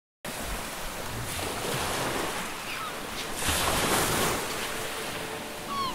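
Rushing of wind and lapping waves on a lake, cutting in suddenly and swelling about halfway through, with a few short high chirps.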